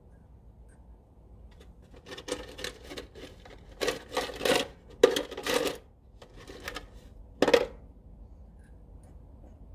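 Stainless lock washers and other small metal hardware clinking as they are fitted over intake-manifold studs. It is a run of light metallic clicks and jingles lasting several seconds, with the busiest stretch in the middle and one sharp clink near the end.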